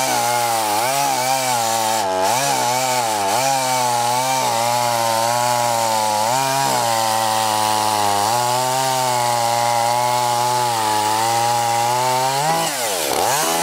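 Echo CS-260TES small two-stroke top-handle chainsaw running at high revs while cutting wood, its pitch sagging briefly a few times under load. Near the end the revs drop sharply and then climb again.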